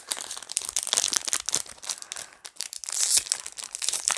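Foil Pokémon card booster pack crinkling and tearing as it is handled and pulled open, a fast run of crackles loudest about three seconds in.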